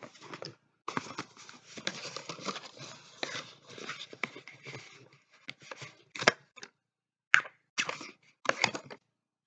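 Packaging being handled and torn open: about five seconds of dense rustling and tearing, then a handful of separate short, sharp clicks and taps.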